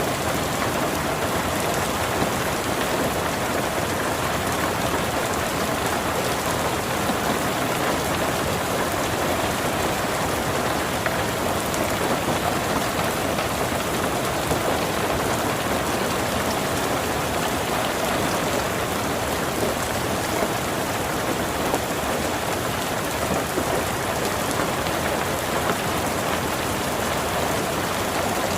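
Steady, heavy rain falling on a surface, a dense even patter with countless small drop ticks.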